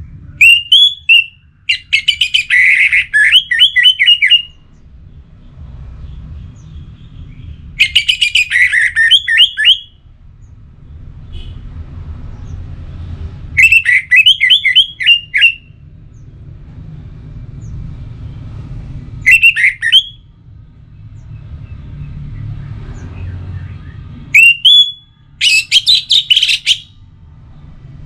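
Orange-headed thrush singing loud bursts of rapid, sweeping whistled notes, six phrases a few seconds apart. A faint low rumble runs underneath.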